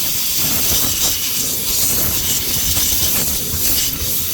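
Shop vacuum running steadily, sucking up dirt and debris from around a car's fuel pump access opening: a continuous loud rushing hiss.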